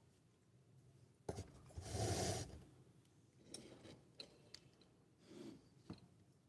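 Faint handling sounds as a small white ramekin heaped with popcorn is set down on a small wooden table: a sharp click, then a short scraping rustle about two seconds in, the loudest sound, followed by a few light taps.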